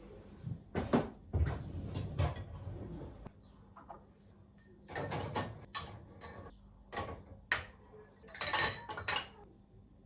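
Irregular knocks and clatter of hard objects being handled, some single and some in short rattling clusters.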